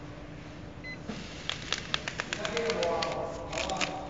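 A short keypad beep from the packing machine's control panel, then from about a second in a quick irregular run of sharp crackling clicks from the machine's plastic wrapping film being handled, over a low steady hum.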